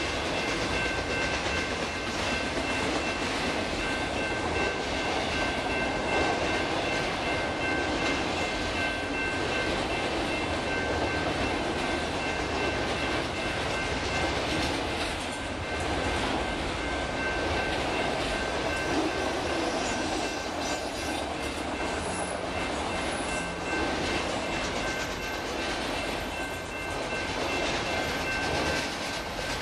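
A long string of autorack freight cars rolls past at speed with steady wheel-on-rail clatter. A grade-crossing warning bell rings steadily over it and stops near the end.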